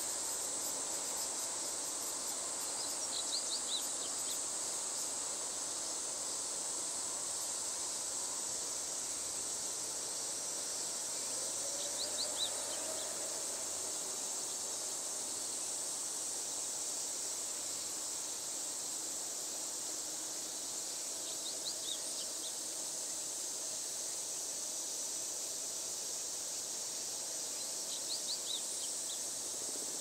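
Steady high-pitched drone of insects, broken four times by short bursts of quick, high bird chirps spaced several seconds apart.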